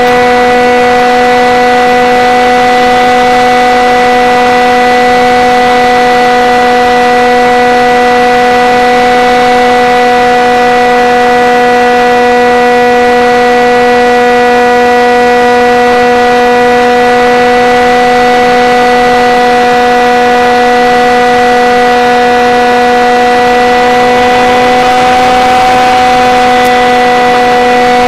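Motor and propeller of a Multiplex Shark RC airplane in flight, heard close up from its onboard camera: a loud, steady, pitched drone that rises slightly in pitch near the end.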